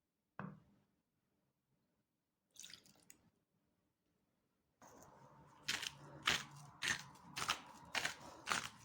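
Someone biting and chewing crunchy food, starting about five seconds in, with a crisp crunch about every half second.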